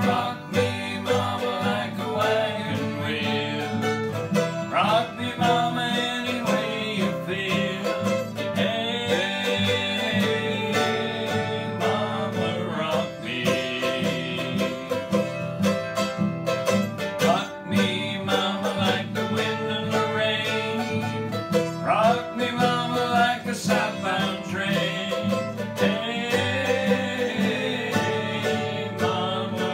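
Acoustic guitar strumming chords with a mandolin playing along, the two plucked-string instruments together in a steady rhythm.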